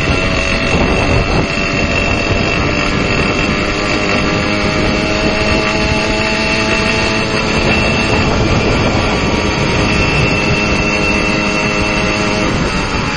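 Motorcycle engine running steadily up close, with a thin high whine held over the engine note.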